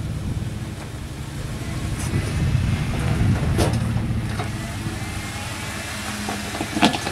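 Jeep engine running and revving unevenly as it crawls over rocks, swelling a couple of seconds in. Two sharp knocks come through, the louder one near the end, typical of rock or metal contact.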